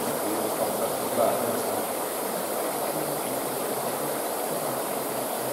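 Compressed air at about 2 bar forced through rows of 1.5 mm holes in pipework under 50 mm of water, giving a steady hiss of bubbling, churning water.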